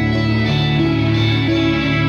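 Background instrumental music with guitar, its held notes changing pitch about every second.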